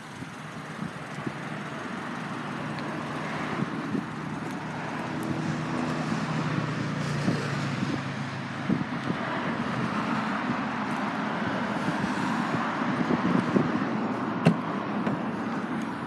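Steady road-traffic noise that grows gradually louder, with one sharp click near the end.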